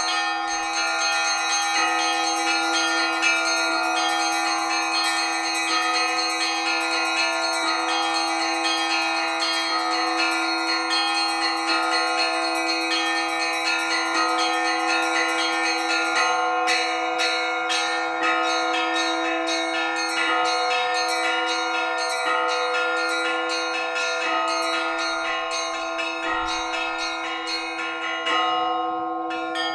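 Russian Orthodox church bells rung together. Small bells are struck in quick, dense patterns over the sustained hum of larger bells. The highest bells pause briefly near the end, then come back in.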